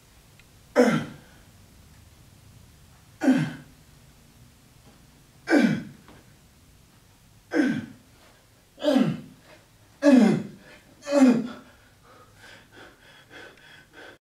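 A man's voice giving short, loud exertion cries, seven in all, each one falling in pitch; they come about every two seconds and then more quickly toward the end, followed by fainter breathing sounds.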